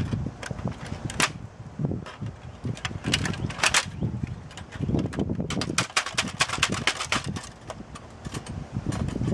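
Plastic and metal parts of an HP inkjet printer clicking, snapping and rattling as they are pried and worked loose by hand with a screwdriver: irregular sharp clicks, with a dense run of them in the middle.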